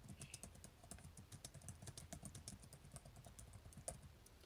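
Faint typing on a computer keyboard: irregular key clicks, several a second.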